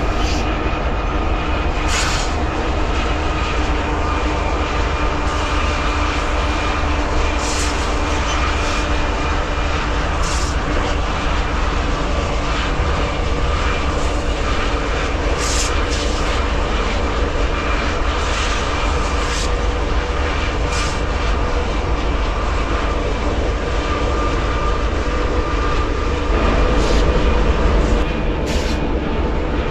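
A diesel train running, with a steady deep rumble and occasional short clicks and clanks from the wheels and cars.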